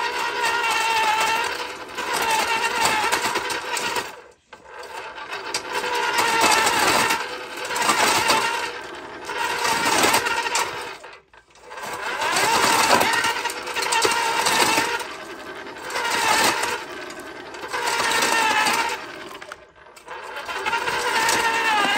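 RYOBI 40 V brushless cordless earth auger with an 8-inch bit drilling into gravelly soil. Its motor and gearbox whine in repeated surges, the pitch sagging and recovering as the bit bites, and it stops briefly three times, about 4, 11 and 20 seconds in.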